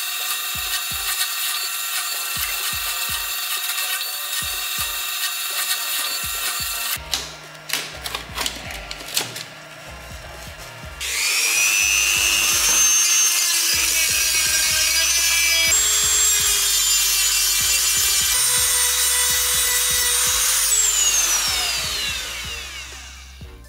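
A drill press runs with a steady whine as it drills into a wooden panel, followed by a few seconds of scattered clicks and knocks. About eleven seconds in, a Dremel rotary tool starts up with a loud high whine as it works the wood, its pitch shifting, and near the end the pitch falls away as the tool spins down.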